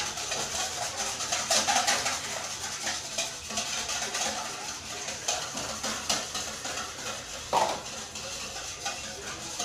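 Wire whisk beating a mixture in a stainless-steel mixing bowl: rapid scraping and clinking of the wires against the metal, with one louder knock on the bowl about seven and a half seconds in.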